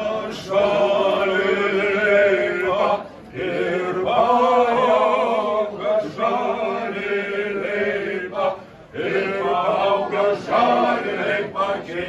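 A small group of singers, mostly male voices, singing a Samogitian (Lithuanian) folk song together without instruments. There are short breath pauses between lines, about three and nine seconds in.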